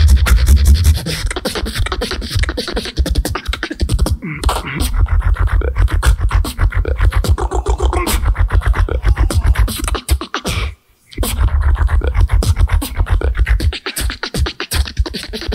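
Solo beatboxing: a dense stream of rapid clicks and hi-hat-like snaps over deep bass kicks, with some pitched vocal sounds worked in. The sound cuts out briefly about eleven seconds in, then resumes.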